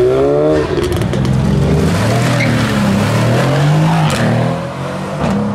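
Mercedes coupé's engine revving hard under full acceleration, its pitch climbing, dropping sharply about four seconds in, then climbing again.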